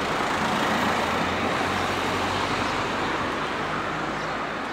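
Steady road traffic noise: an even rushing hiss with a low hum underneath, easing off slightly toward the end.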